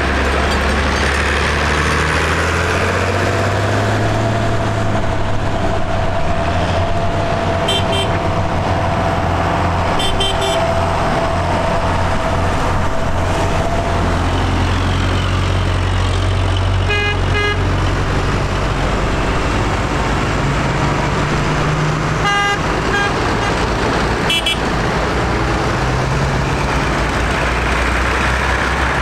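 A procession of farm tractors driving past one after another, their diesel engines running steadily, with the engine note shifting as each one passes. Several short horn toots sound over it, a few quick ones in a row near the middle.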